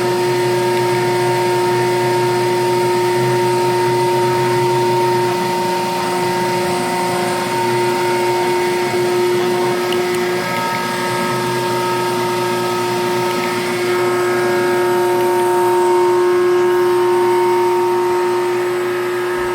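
Mini CNC lathe running: a steady machine whine of several tones over a hiss, with some of the higher tones shifting a little after about ten seconds.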